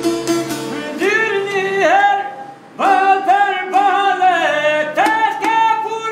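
A man singing in a high, sliding, strained voice to a bowed lahuta. The instrument plays alone for about the first second. The voice then enters with upward-sliding attacks, stops briefly just past two seconds, and carries on to the end.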